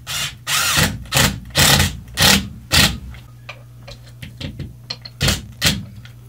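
Cordless drill driving a screw into a wooden wall stud in short trigger bursts: six quick runs in the first three seconds, then two more about five seconds in.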